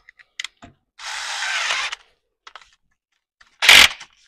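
DeWalt 20V cordless drill with a counterbore bit: a few small clicks as the bit is handled, then the drill runs for about a second. Near the end comes one loud short knock.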